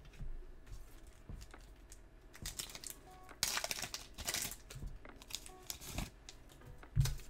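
Foil wrapper of a Pokémon booster pack crinkling and tearing as the pack is opened, about three and a half seconds in, among scattered light clicks of cards being handled. A brief low thump near the end.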